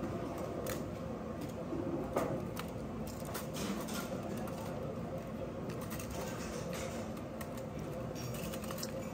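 Scattered light clicks and clinks of utensils against crockery over a steady background hum.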